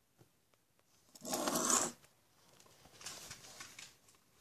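Handling noise: a short, loud scraping rub about a second in, then a fainter, longer one around three seconds in.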